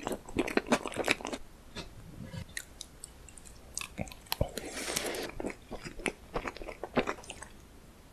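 Close-miked mouth sounds of a person eating cake: chewing with many small clicks, thick in the first second, sparser after. About four seconds in a new forkful goes into the mouth and is chewed.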